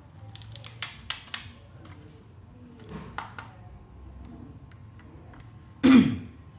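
Hard plastic toy revolver being handled: a run of light plastic clicks and taps, then one much louder plastic clack about six seconds in.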